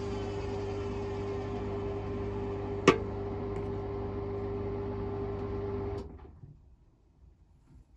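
Hotpoint WML540 Aquarius washing machine humming steadily as its final spin ends. A single sharp click comes about three seconds in, and the hum cuts off about six seconds in, leaving near silence.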